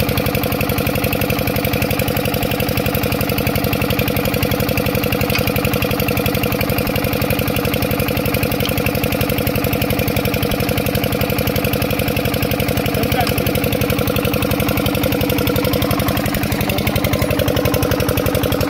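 Single-cylinder stationary diesel engine running steadily, with a fast, even knocking beat.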